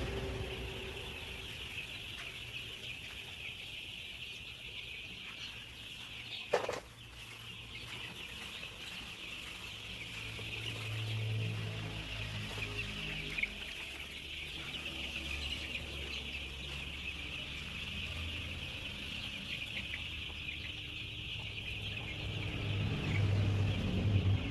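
A flock of Kaveri chicks peeping together in a continuous, high chorus, with one sharp knock about six seconds in.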